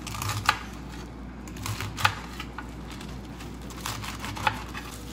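Knife slicing leaf lettuce on a glass cutting board: irregular sharp taps of the blade on the glass with crisp crunching of the leaves, a handful of strokes.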